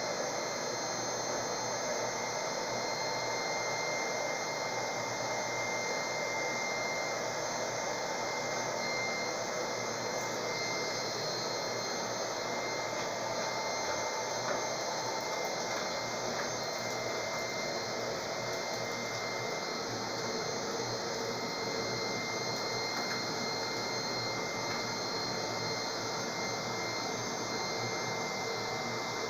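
Hair dryer running steadily as the blower of a gas-cylinder forge: an even whoosh of air with a constant high motor whine.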